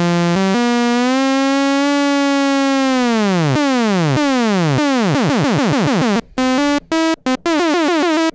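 Yamaha CS-15 analog monosynth sounding one note whose pitch is swept by its sawtooth LFO. It drops in repeated falling swoops that come faster and faster as the LFO rate is turned up. Near the end the tone breaks into several short, retriggered notes.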